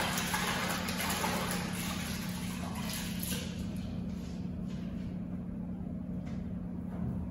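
Steady low hum under a hiss that fades away over the first four or five seconds, with a few faint knocks later on.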